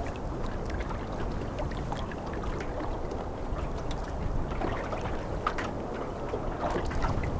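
Choppy sea water lapping and splashing against a small boat, over a steady low rumble.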